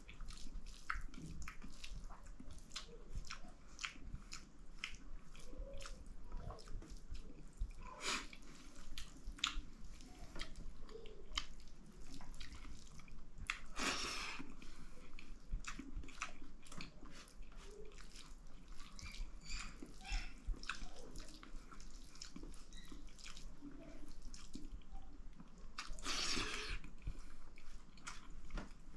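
Close-miked eating of dal bhat with lapsi pickle: steady wet chewing, lip smacks and mouth clicks. Three longer noisy swishes come about eight seconds in, near the middle and near the end.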